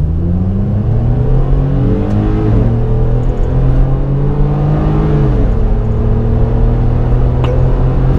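Mid-size pickup truck engine accelerating at full throttle toward 100 km/h. Its pitch climbs steadily and drops at upshifts about two seconds and about five seconds in.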